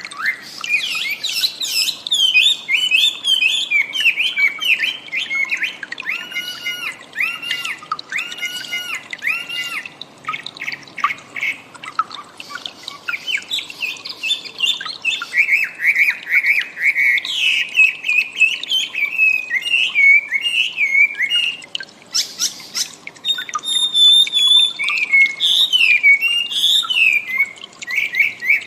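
Wambi bird singing a varied, continuous song of rapid chattering chirps, whistles and squawks, with a run of repeated arched whistled notes partway through.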